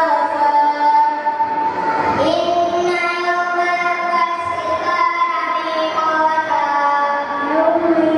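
Children singing a melodic chant in long held notes that step from pitch to pitch.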